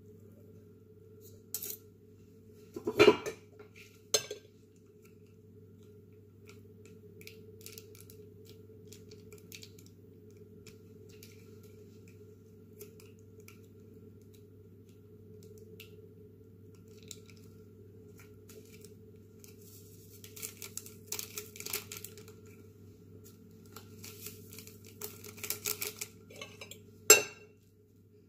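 Metal fork clinking and scraping against a ceramic plate while tossing cooked instant noodles. There are sharp clinks about three seconds in and again near the end, a run of quick scrapes in the last third, and a steady low hum underneath.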